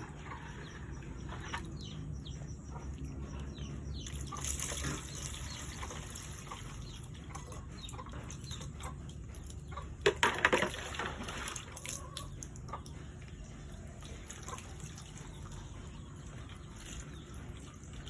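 Water being poured into a bottle, with splashing and small knocks of handling; a louder rush of water about ten seconds in.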